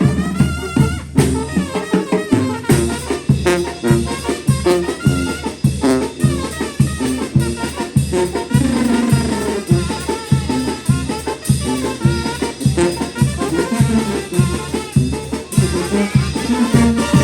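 Mexican brass band (banda) playing a lively tune: trumpets and other brass carry the melody over drums keeping a steady beat.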